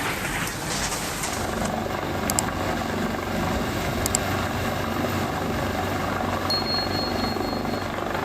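An engine running steadily, a continuous mechanical rumble.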